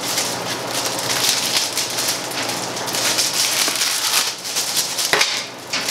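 Plastic packaging bag crinkling and tearing as it is pulled open by hand, a dense crackling rustle that eases briefly near the end.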